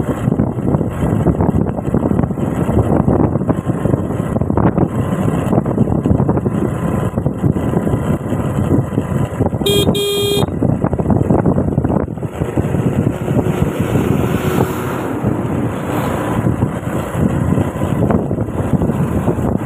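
Steady wind and road rush from a moving scooter, its engine running underneath. About ten seconds in, a vehicle horn gives one short toot, under a second long.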